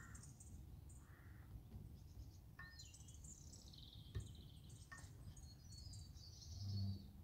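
Small birds chirping and singing faintly, with a couple of small clicks midway and a short low hum near the end.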